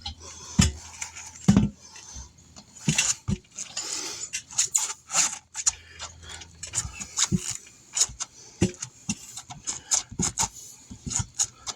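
Tire spoons clinking and scraping against a wheel rim as a tire bead is levered on by hand: an irregular run of short metallic clanks and scrapes.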